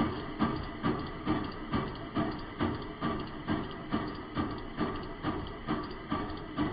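Engine running unevenly, with a heavy pulse about twice a second over its steady running: a rhythmic miss of the kind a bad fuel injector causes.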